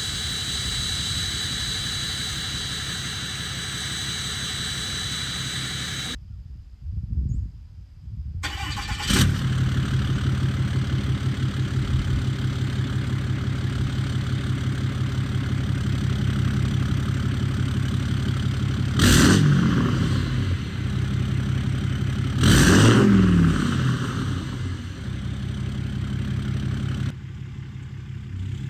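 6.7 Cummins diesel running through a 5-inch straight-pipe exhaust with no muffler. For the first six seconds it sits in warm-up idle with a steady high turbo whistle. After a short break it idles normally and is revved briefly twice in the second half.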